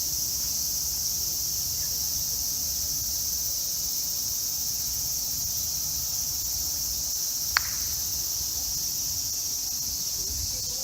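Steady high-pitched chorus of insects, with a single sharp click about seven and a half seconds in.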